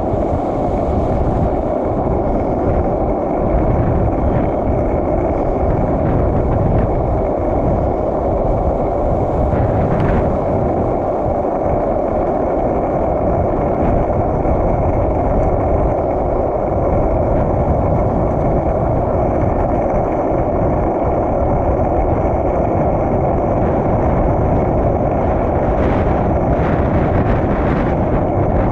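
Skateboard wheels rolling steadily on asphalt during a long downhill run, a continuous rolling rumble with wind buffeting the microphone.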